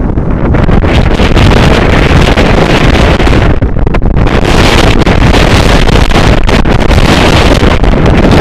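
Strong wind buffeting the microphone: a loud, continuous rumble that flutters with the gusts and covers any other sound.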